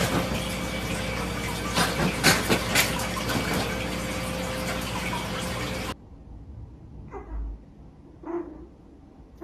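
Steady rushing noise with a few sharp clicks, cutting off abruptly about six seconds in. After the cut there are a few faint short squeaks.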